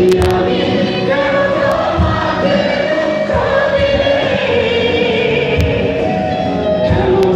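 Live band music with a large crowd singing along, many voices holding long sung notes together over the band.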